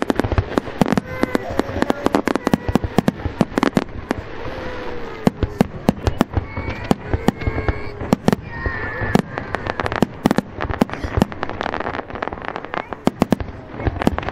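Fireworks display: a dense, irregular run of sharp bangs from bursting shells, often several a second.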